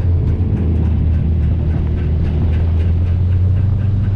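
Nissan Skyline R32's engine running at low, steady revs, heard from onboard the car, with a fast, regular ticking over it.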